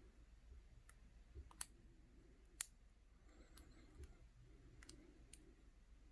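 Faint, sparse clicks of a lock pick and tension wrench working in the keyway of a Master Lock No. 160 brass padlock, about six small metallic clicks spaced irregularly, the second and third the loudest.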